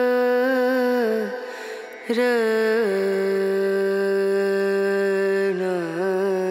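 Background music: a solo voice singing long held notes with small wavering turns between them, in an Indian chant-like style. It breaks off briefly after about a second, then settles onto a lower note held for several seconds.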